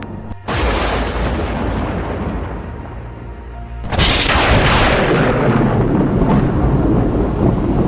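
Fantasy fight sound effects: two booming blasts like magic attacks, the first about half a second in fading away over a few seconds, the second at about four seconds louder and rumbling on like thunder, over dramatic background music.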